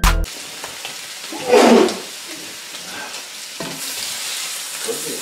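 Chicken strips sizzling in a skillet while a spatula stirs and scrapes them through the pan, with a louder scrape about a second and a half in. A short tail of background music cuts off at the very start.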